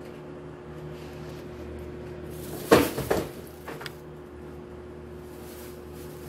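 A brief burst of clattering and rustling handling noise about three seconds in, several quick knocks close together with a smaller one just after, over a steady low hum.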